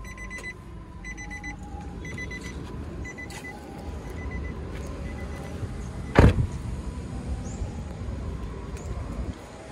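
A car's electronic warning chime beeping in quick repeated bursts that fade out, then a car door shutting with a single loud thump about six seconds in, over a steady low rumble.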